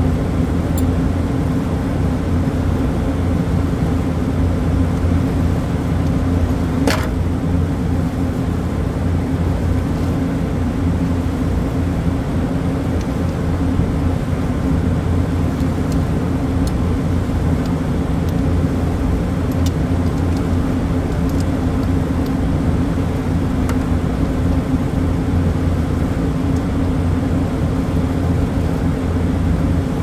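Steady, loud low hum and drone of running machinery, unchanging throughout, with a single sharp click about seven seconds in.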